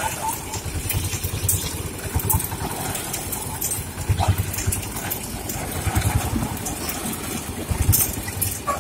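Motor-driven sugarcane juicer running with a low, pulsing rumble while stalks of cane are fed through and crushed between its steel rollers.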